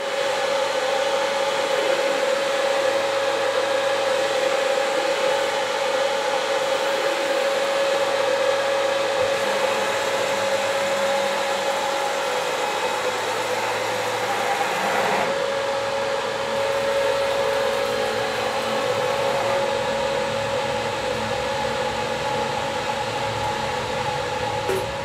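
4.0 Robotics Executive 8 CNC router running, its AC servo-driven gantry traversing on ballscrews and linear rails: a steady whirring whine, its tone shifting slightly about 9 and 15 seconds in.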